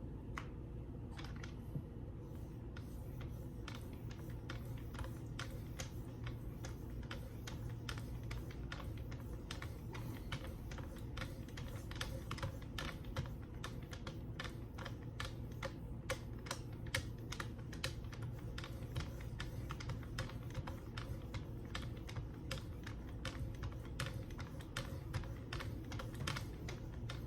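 Knife edge being worked on a Wicked Edge guided sharpening system: the sharpening paddles stroke along the D2 steel blade in a steady run of light clicks and scrapes, several a second, over a low steady hum.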